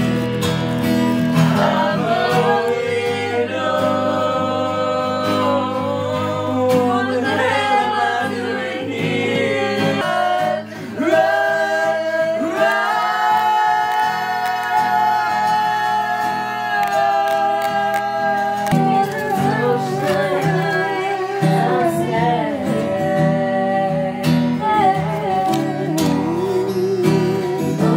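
A song with a singer over guitar: the voice holds long notes, one of them for several seconds about halfway through, and sings with vibrato after it.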